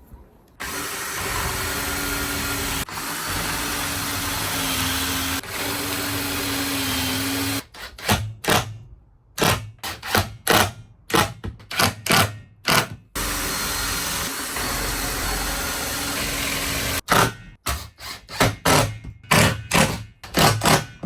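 Power drill running steadily for about seven seconds, then pulsed in quick short bursts, running steadily again for about four seconds, and pulsed in short bursts near the end: drilling pocket holes and driving screws through a pocket hole jig.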